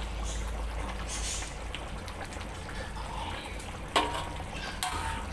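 Rendang curry simmering and bubbling in a metal wok as a metal spatula stirs it, with a sharp clack of the spatula against the wok about four seconds in and a lighter one just before the end.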